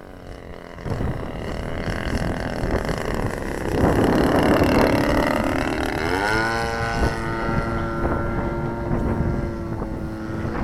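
Model airplane engine running in the air, rising in pitch about six seconds in and then holding a steady note, under gusty wind noise on the microphone.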